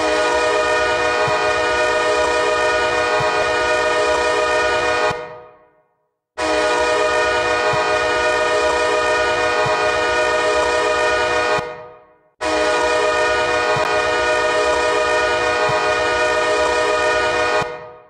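Hockey goal horn sounding three long blasts of about five seconds each, a steady chord of several tones, each blast dying away in a short echoing tail.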